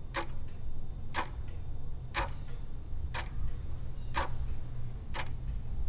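Clock-ticking sound effect: crisp ticks about once a second over a low steady hum, marking a jump in time.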